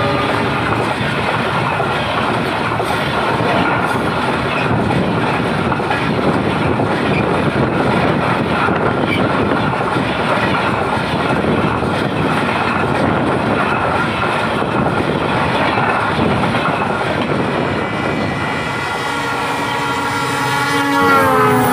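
Passenger train coaches rolling past close by at speed: a steady rush of wheel-on-rail noise. Near the end a diesel locomotive sounds its multi-note horn, and the pitch drops as it passes.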